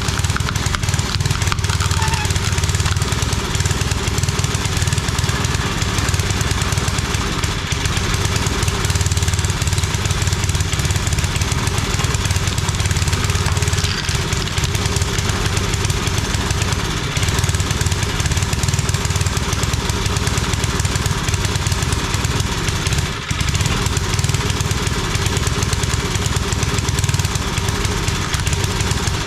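Old 5 hp Briggs & Stratton single-cylinder engine on a homemade log splitter running steadily, with a brief dip about 23 seconds in. It is running, but not as well as the owner wants; he suspects a fuel supply problem.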